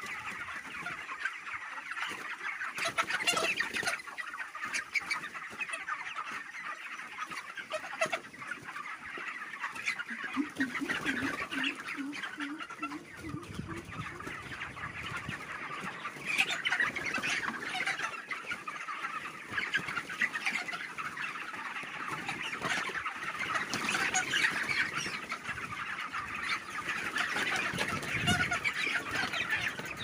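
A large flock of 33-day-old broiler chickens calling and clucking together in a continuous, dense chorus of many overlapping high calls.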